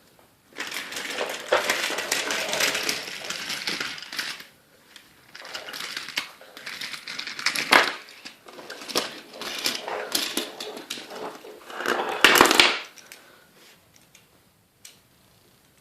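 Small hard toy pieces, die-cast toy trains and their track, clattering and rattling as they are handled and pushed around, full of sharp clicks. It comes in two long stretches and dies down for the last few seconds.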